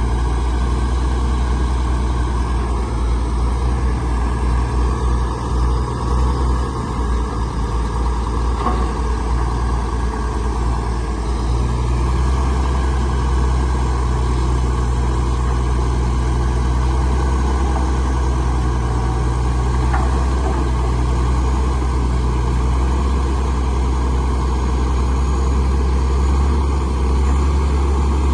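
Heavy diesel engine of earthmoving machinery running steadily at a landfill site, a deep, even drone with a slight shift in its low tone about 11 seconds in.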